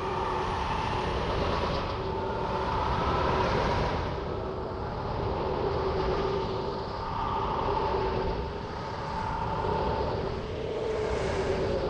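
Steady roaring sound effect with two held tones underneath, a low one and a higher one, swelling and easing every two to three seconds.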